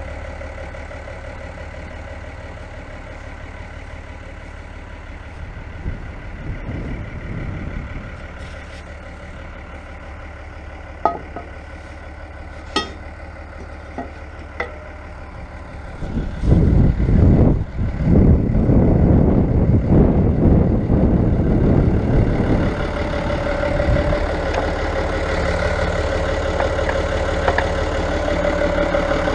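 Fiatagri 100-90 tractor's diesel engine running steadily at idle, with a few sharp knocks around the middle and a louder, noisier stretch for about six seconds after the middle before settling back.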